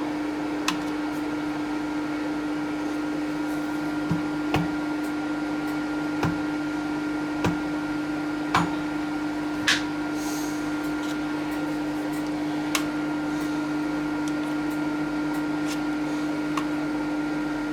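TOS milling machine running with a steady hum, with about nine short clicks and knocks at irregular times.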